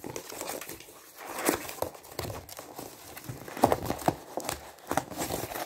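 Corrugated cardboard packaging being pulled and torn open by hand: irregular crumpling and crackling, with a few sharper rips after the middle.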